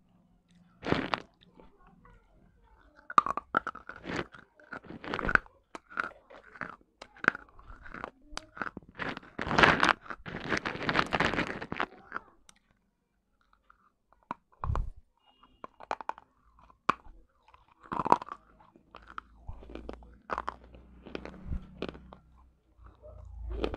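Broken clay pot pieces being bitten and chewed close to a clip-on microphone: sharp, dry crunches, with a long dense run of crunching in the middle, a short pause, then more scattered crunches.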